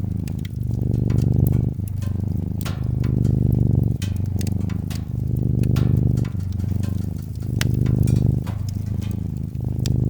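Domestic cat purring close up, the rumble swelling and easing with each breath about every two seconds. Over it come the scattered crackles and pops of a wood fire.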